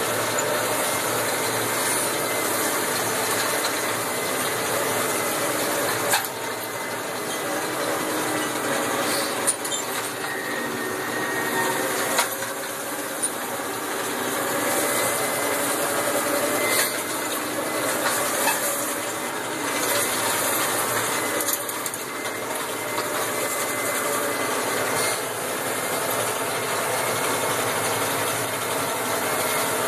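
Massey Ferguson 5455 tractor's four-cylinder diesel running steadily under load, heard from inside the cab, with continuous mechanical rattling and a few sharp knocks.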